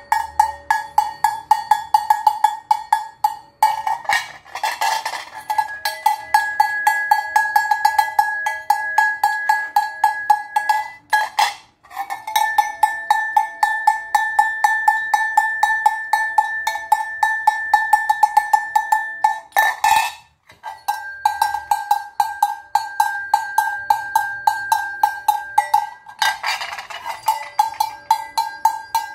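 Hand-held sheet-metal cowbells shaken in turn, the clapper striking fast and evenly for a continuous clanking ring with a clear bell tone. The ringing stops briefly about 12 and 20 seconds in, and the tone shifts slightly as a different bell takes over; there are rattling handling noises around 4 and 27 seconds in.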